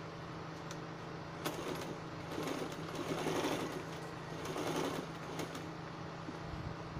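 Domestic sewing machine stitching through layered cotton fabric in short runs, loudest between about two and five seconds in, over a steady low hum.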